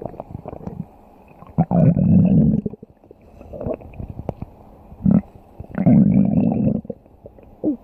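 Stomach growling: a series of irregular rumbling growls, two longer ones about two seconds in and about six seconds in, with shorter gurgles and small clicks between.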